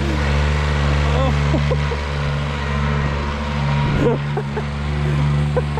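Diesel engine running at a steady speed, with a brief low bump about four seconds in.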